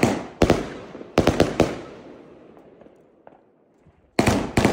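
Nico 'Out of Limits' 36-shot firework battery firing. There is a bang about half a second in and a quick cluster of bangs around a second and a half, which fade away into a lull. Another rapid volley of bangs comes near the end.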